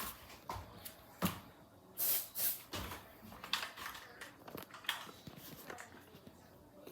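Two short hisses of aerosol smoke-detector test spray about two seconds in, among light handling clicks and knocks. No alarm sounds: the detector has not yet responded to the spray.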